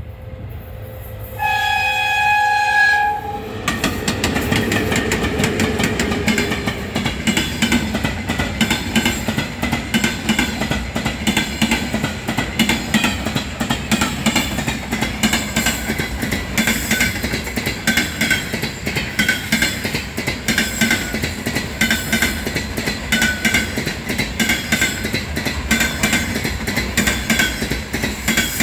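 A VL80S three-section electric freight locomotive blows its horn in one short blast, about a second and a half long, as it approaches. It then passes close by with a loud rumble and a falling tone. After it come container wagons whose wheels clatter in a steady rhythm over the rail joints.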